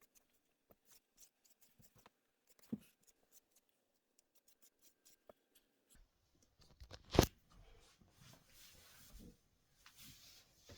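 A brush being pulled through a faux-fur fursuit tail: faint, quick scratchy strokes of the bristles through the fur, with a louder knock of handling about seven seconds in.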